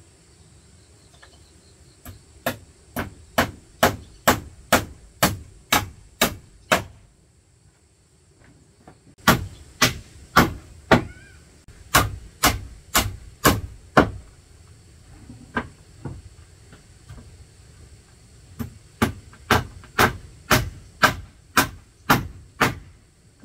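Rhythmic blows of a hand tool, about two a second, in three runs of around ten strokes each with short pauses between.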